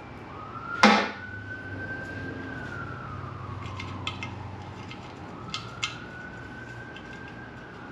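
A sharp metallic clank about a second in, then lighter clicks of metal tools and screws on the engine's sheet-metal cover. Behind them, a thin tone rises, holds and slowly falls away, twice, like a distant siren wailing.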